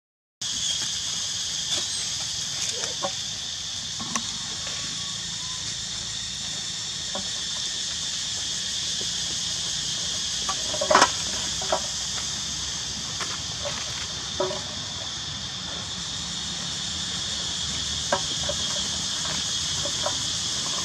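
A steady, high insect drone in the background, with scattered light knocks and rustles as a baby monkey handles an empty aluminium soda can among dry leaves. The loudest knock comes about halfway through.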